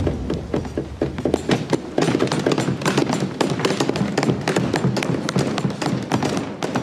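A roomful of people clapping and rapping: a dense, irregular run of sharp strikes that starts thin and fills out about a second and a half in.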